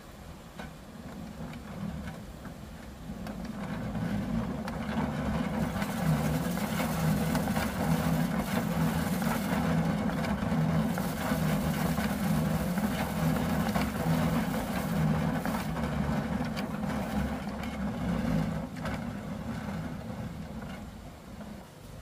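Treadle-driven rice thresher: its wire-toothed drum whirs up to speed as it is pedalled, with the rattle and swish of rice stalks being beaten against the teeth, and slows down near the end.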